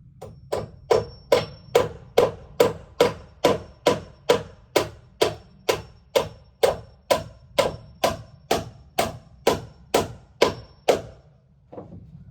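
Steady hammering on wood, about two blows a second and some two dozen strikes, each with a short ring. It stops about a second before the end.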